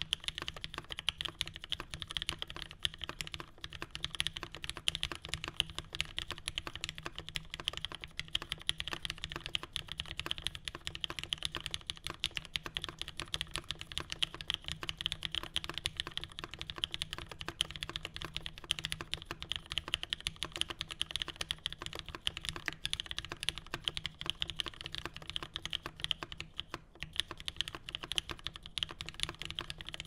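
Fast, continuous typing on a custom mechanical keyboard: lubed Cherry retooled MX Black linear switches with 55 g springs on an O-ring gasket-mounted aluminium plate in an aluminium Kaze case, with CRP keycaps. A dense stream of key clacks with a brief pause near the end.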